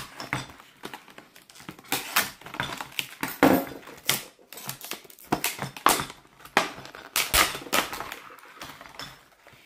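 Stiff clear plastic clamshell packaging crackling and clicking as it is pried apart by hand, with irregular sharp cracks and rustles as the card insert and parts are pulled out.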